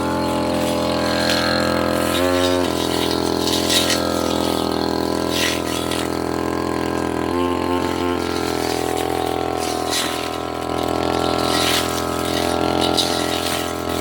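Tasco 33 Pro two-stroke brush cutter engine running steadily at high speed while cutting saplings and roots. Its note briefly stutters about two seconds in and again around seven to eight seconds.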